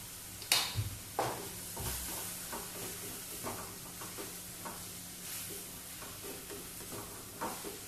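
Spiral wire whisk beating eggs in a bowl, the wire tapping and scraping against the bowl in short, irregular strokes, over a steady sizzle from vegetables sautéing in a pan.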